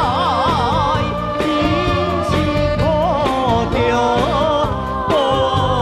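Recorded Taiwanese Hokkien song playing: a wavering melody with strong vibrato, then held notes, over a steady bass beat.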